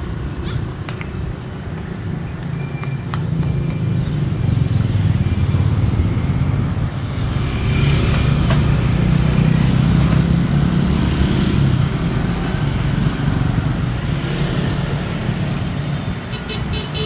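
Street traffic heard from a moving cyclo: motorbike and car engines nearby over a steady low rumble, louder through the middle.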